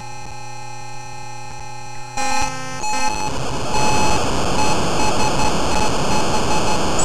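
BBC Micro's emulated SN76489 sound chip, made to sound on keypresses by a poke of zero into &FE40. It holds a buzzy chord of steady tones for about two seconds, changes, and from about three seconds gives a loud harsh hiss with a tone or two over it. These are garbled chip tones and noise set off by typing, not a very elegant sound.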